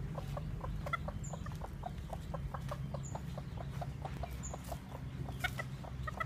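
Chickens clucking in a quick, steady series of short clucks, about five a second, over a steady low hum.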